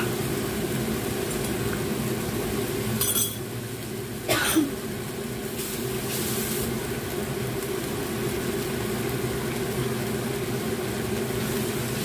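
Eggplant simmering in garlic and oyster sauce in a nonstick wok, a steady bubbling of the sauce, with one sharp knock about four seconds in.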